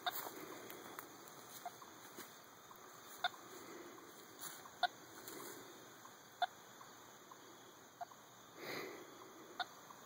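Radio telemetry receiver giving short, sharp beeps about every second and a half: the pulses of the radio transmitter glued to a box turtle's shell, coming in strong as the antenna points toward her. A brief rustle sounds near the end.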